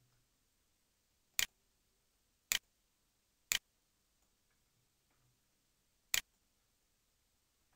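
Computer mouse clicks: four sharp, identical clicks, three about a second apart and a fourth about two and a half seconds later.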